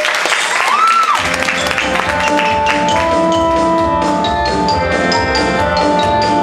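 Audience applause dies away with a brief whistle, then a winter winds ensemble starts playing about a second in: sustained chords over a bass line, with repeated percussion strikes.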